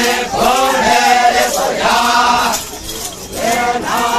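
Group of Naga dancers chanting together in traditional song as they dance, in phrases with a short pause about three seconds in.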